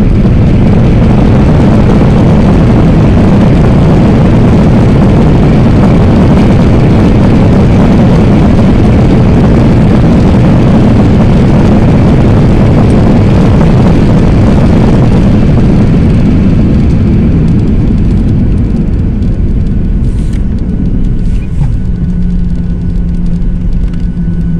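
Loud roar of a jet airliner's landing roll heard inside the cabin, engine and runway noise together. It dies down over the last several seconds as the plane slows, and a steady low hum comes in near the end.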